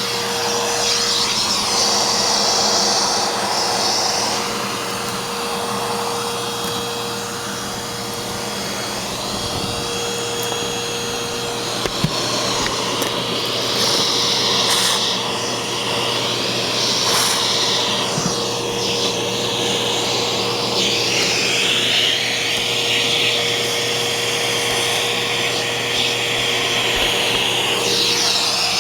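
Eureka Boss Smartvac 4870 upright vacuum cleaner running steadily: a constant motor whine under a rush of air that swells and fades as the machine works over the floor. One small click about twelve seconds in.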